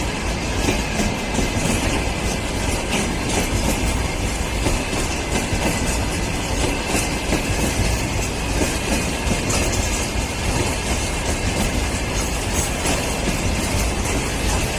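Freight train rolling steadily past at close range: a continuous rumble of wagons with the clickety-clack of wheels over rail joints.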